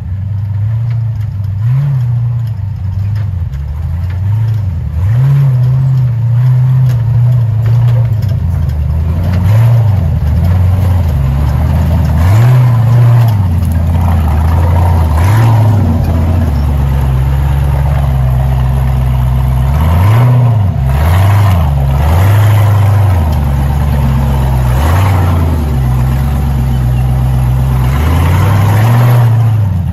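V8 engine of a Toyota Land Cruiser off-road race truck running at low speed, revved up briefly again and again as it crawls up the trail and past, loud and close.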